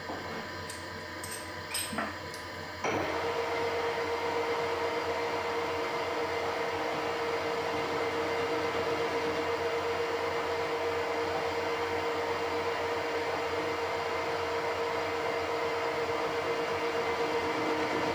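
A few light metallic clicks, then a Harrison 140 metal lathe switched on about three seconds in, its chuck spinning up and running steadily with a constant whine.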